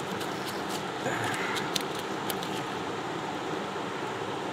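Steady rush of a flowing river, with a few light clicks and rustles in the first two seconds or so as a caught fish is pushed into a mesh keep net.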